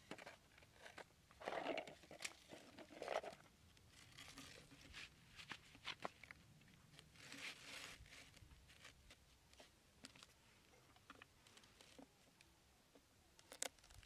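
Quiet handling noises from a plastic bowl and a corrugated cardboard disc being moved and fitted together on sand: scattered light clicks with a few short crunching rustles.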